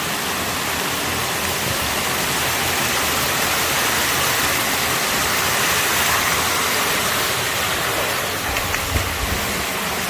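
Stream water pouring over a low concrete ledge in a culvert: a loud, steady rush of falling water. A few low bumps come near the end.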